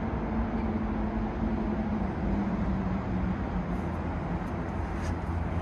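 Steady city traffic noise: a continuous low rumble of road vehicles with a faint engine hum.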